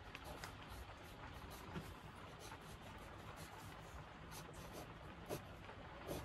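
Faint scratching of a pencil drawing fine lines on textured watercolour paper, with a couple of soft clicks.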